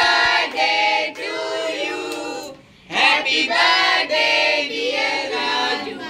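Voices singing a song together, in two phrases with a brief break about halfway through.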